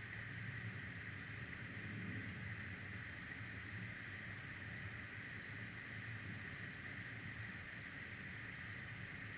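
Steady outdoor background noise from a nest-camera microphone: a constant hiss with a low, unsteady rumble, and no distinct bird calls.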